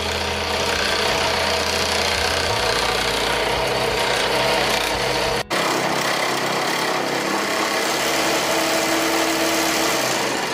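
Scroll saw running, its 15-tooth-per-inch blade cutting through a carbon fiber plate: a loud, steady cutting noise, broken for an instant about halfway through.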